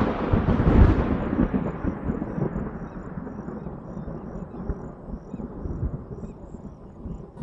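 A roll of thunder: a deep rumble, loudest about a second in, that grows duller and fades away over the following seconds.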